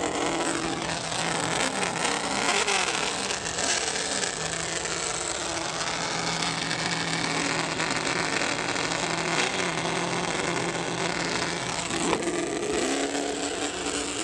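Recorded V8 truck engine sound played through the small speakers of a Traxxas Slash RC truck's onboard sound system as the truck drives, with the engine note shifting in pitch now and then, over the noise of its tyres and drivetrain.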